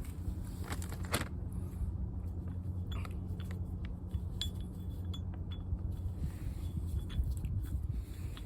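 Scattered light metallic clicks and clinks of small parts being handled, over a steady low hum.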